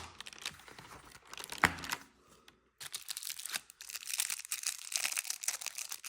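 Plastic and paper packaging crinkling and tearing as a small fishing lure is unwrapped from an advent calendar compartment, with a sharp knock about a second and a half in and the crinkling growing busier in the second half.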